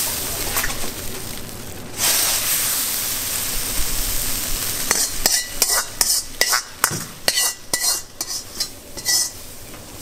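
Starch-thickened seafood sauce sizzling in a hot wok as it is finished with sesame oil. From about five seconds in, a metal ladle knocks and scrapes against the wok many times, with a short metallic ring.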